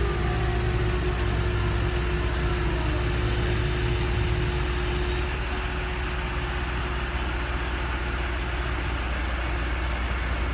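Large engine running steadily: a constant low hum with a steady tone above it, the high hiss dropping away about halfway through.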